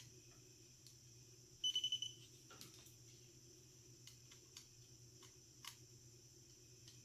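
Holiday light tester's voltage detector beeping in a quick run of high beeps about one and a half seconds in, the signal that it senses power at that point in the light string. Faint clicks of bulbs and wire being handled come and go around it.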